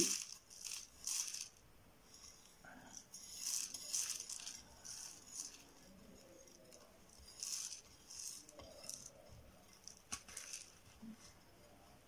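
A spoon scooping and pouring small dry seeds into a small cup, with light, irregular rustling and a few clinks of the spoon against the dish and cup.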